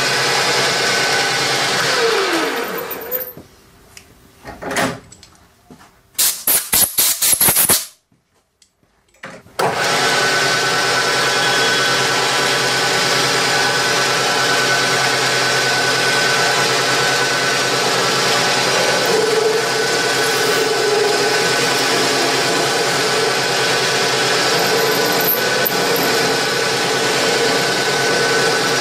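Metal lathe running with a steady hum, then spinning down about two seconds in. After a few quiet seconds with faint knocks comes a brief burst of loud, rapid clattering, a short silence, and then the lathe running steadily again.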